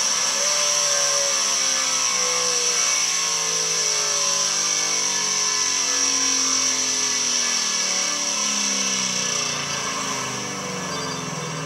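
Drag car's engine heard from inside the car, its note falling slowly and steadily in pitch as it winds down, over a steady high hiss.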